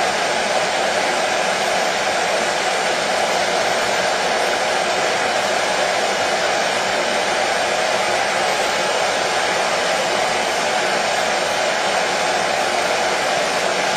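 Hair dryer running steadily: an even, unchanging rush of fan and airflow noise, strongest in the middle of the range.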